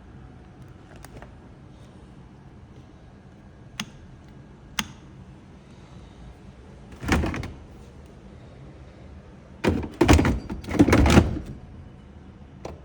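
Samsung American-style fridge being opened and handled: two sharp clicks, then a short knock-and-rub about halfway through and a louder cluster of thuds and rubbing near the end, like the fridge door and the water-carafe compartment opening and closing.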